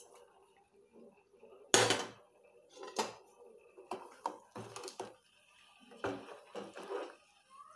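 A metal ladle stirring thin rasam in a stainless steel pot, clanking against the pot's rim and sides in a string of separate knocks, the loudest about two seconds in.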